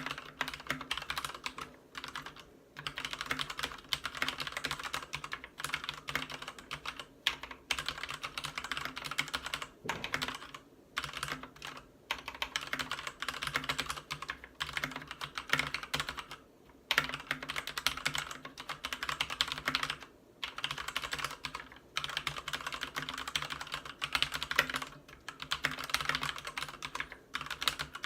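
Typing on a Ducky Zero 3087 tenkeyless mechanical keyboard with Cherry MX Red linear switches and PBT keycaps: fast runs of keystrokes broken by brief pauses every second or two.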